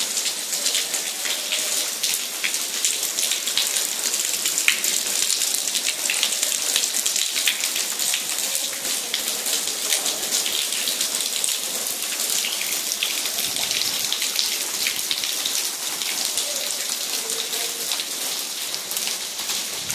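Heavy rainwater falling and splashing in a dense, steady patter of drops, the water that is flooding the building.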